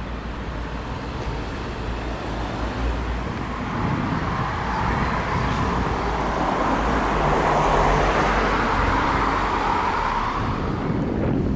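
Road traffic: a vehicle passing on the street, its rushing noise swelling to a peak about eight seconds in and easing off, over a low rumble.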